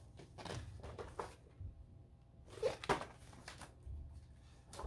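Pages and photo inserts of a K-pop album's photobook being turned and handled: scattered paper rustles and light taps, with two sharper ones close together about three seconds in.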